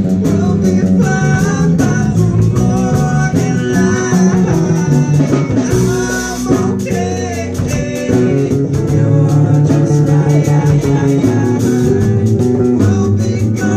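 Live band music led by guitar, with bass underneath, playing a bluesy passage; the sound dips briefly about halfway through before picking up again.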